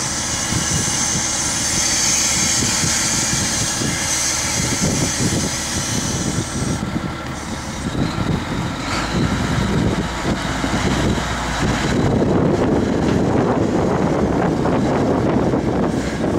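Volvo L150E wheel loader's six-cylinder diesel engine running as the machine lowers its bucket and drives off, with a high hiss over it in the first few seconds. About twelve seconds in the sound grows louder and rougher as it moves across the yard.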